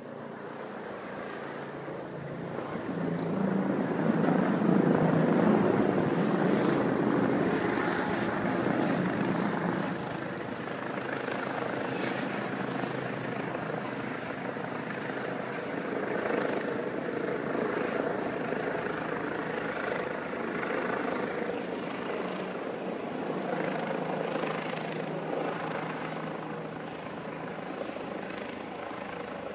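Police helicopter flying overhead, its engine and rotors getting louder over the first few seconds, loudest about five seconds in, then holding steady and slowly fading.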